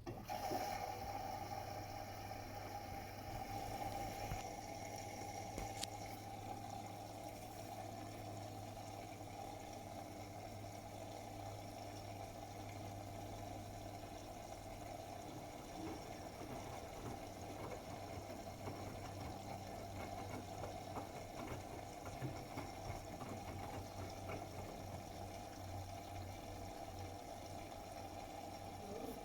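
Bosch Serie 8 WAW32590 front-loading washing machine taking in water: the inlet valve opens suddenly and water runs steadily into the machine, with a low steady hum beneath it.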